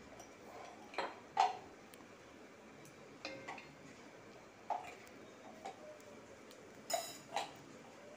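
A metal spoon clinking and tapping against the rim of a metal cooking pot as ghee is spooned onto layered biryani rice. There are about eight scattered, irregular clicks, one near the end ringing briefly.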